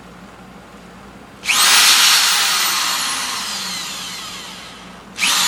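Power drill driving a screw into wood: the motor starts suddenly about a second and a half in and its pitch falls steadily as the screw goes in and loads it. It stops, then starts again for the next screw near the end.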